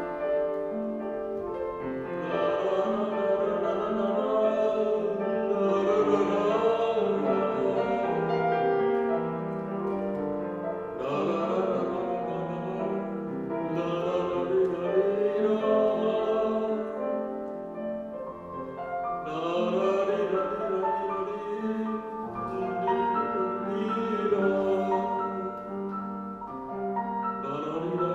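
Male classical-style vocalist singing with vibrato, accompanied by piano. The voice comes in phrases of several seconds, with short piano-only gaps between them.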